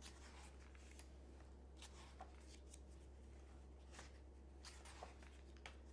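Near silence: room tone with a steady low hum and a handful of faint, scattered clicks.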